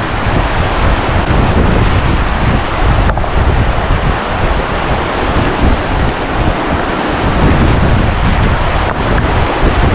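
Fast-flowing river water rushing steadily, with wind buffeting the microphone.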